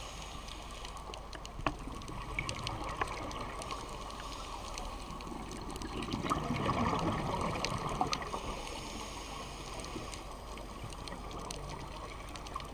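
Muffled underwater sound inside a dive camera housing: a steady low rush of water with scattered faint clicks, swelling for a couple of seconds around the middle as a scuba diver's exhaled regulator bubbles gurgle past.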